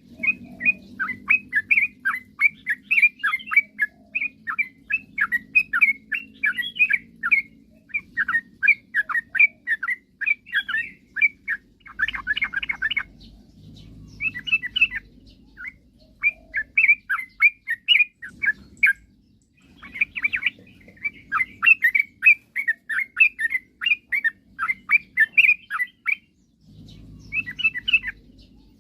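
Sooty-headed bulbul (trucukan) singing vigorously: fast strings of short chirping notes in long phrases, broken by brief pauses about halfway through and again near the end. A faint steady low hum runs underneath.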